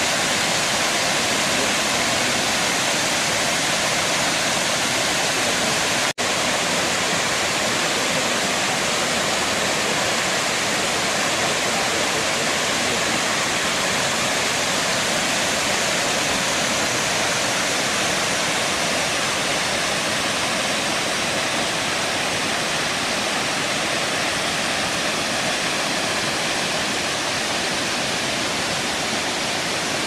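Loud, steady rush of the Kravica waterfall: an even roar of falling and churning water with no change in pitch or level, broken by a split-second gap about six seconds in.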